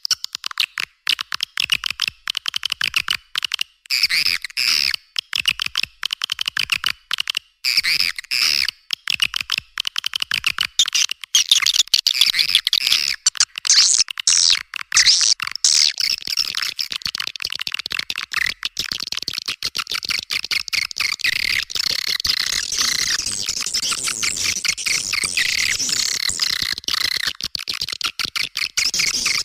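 Swiftlet calls played as a lure (call) recording: rapid, dense high-pitched chirping and twittering. It comes in clustered bursts at first and runs together into near-continuous chatter over the second half.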